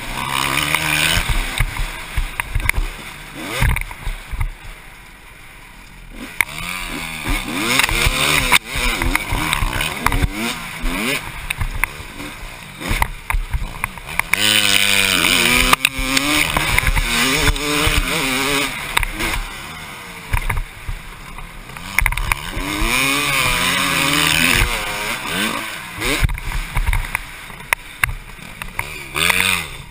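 Single-cylinder two-stroke engine of a 1996 Honda CR250 motocross bike being ridden hard, revving up and down through the gears with a brief ease-off about four seconds in. Wind rushes over the helmet-mounted microphone.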